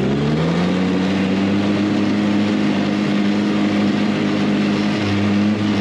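Arctic Cat Kitty Cat kids' snowmobile engine running at steady throttle, its pitch rising slightly at first and then holding steady.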